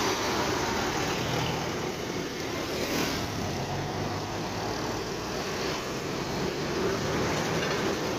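Roadside traffic noise: an intercity bus moving off close by and away down the road, mixed with cars and motorcycles running past.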